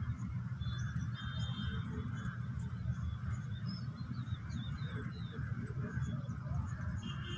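Birds calling outdoors: a few held high notes about a second in, then a run of short gliding chirps midway. Under them is a steady low rumble.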